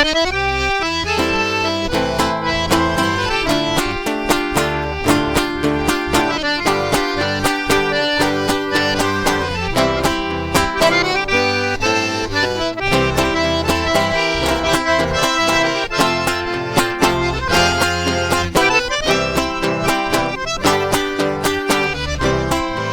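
Instrumental introduction of a sertanejo song: accordion carrying the melody over a plucked guitar or viola accompaniment with a steady rhythm.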